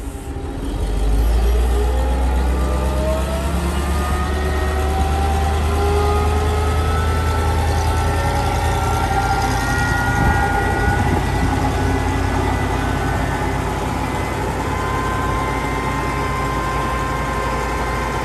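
Propane-fuelled Royal T300C forklift's engine running as the forklift drives. It picks up about a second in, with a whine that rises in pitch over the next few seconds, then runs on steadily and eases slightly near the end.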